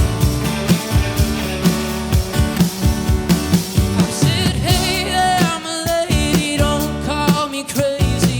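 Live band playing an instrumental passage of a rock song, with a steady drum beat under held chords. About halfway through, a wavering lead melody comes in on top.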